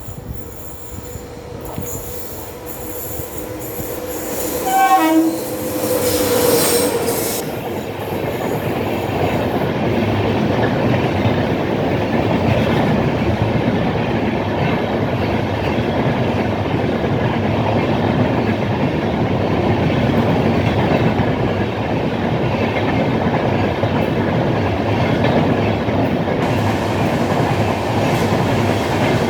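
Indian Railways express train passing at high speed. The WAP7 electric locomotive approaches with its horn sounding a steady tone and rushes by about five seconds in. Its LHB coaches then run past with a steady loud rumble and rattle of wheels on rail.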